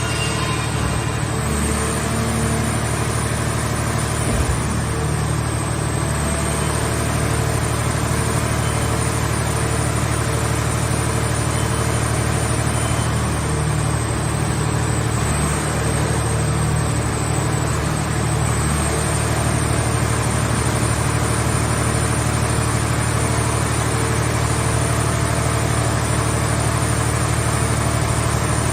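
Engine of a movable car-shell baler running steadily at an even speed, with a thin high whine held above it.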